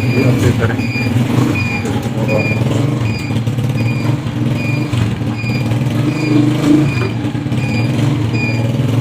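Honda CG 125's single-cylinder engine idling steadily while an indicator buzzer beeps about twice a second, keeping time with the double indicators flashing.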